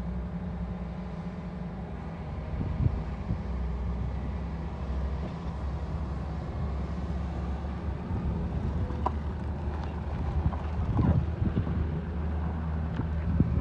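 Heavy diesel dump-truck engine running steadily, with a few knocks and rattles near the end.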